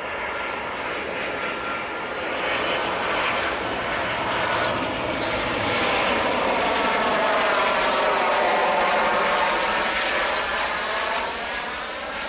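Boeing 737-700 BBJ's twin CFM56-7B turbofan jets at approach power as the airliner passes on short final. A steady jet rush with a thin whine swells to its loudest about eight seconds in, with a sweeping, phasing quality as it goes by, then eases off near the end as the jet flares for touchdown.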